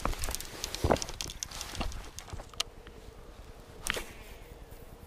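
Rustling, scraping and knocking of a person clambering over shoreline rocks, with clothing brushing the body-worn microphone. Several sharp clicks and knocks, the loudest about a second in, and another short crackle near the end.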